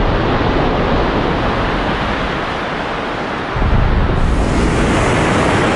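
Ocean surf: a steady rush of waves breaking, swelling up again about three and a half seconds in.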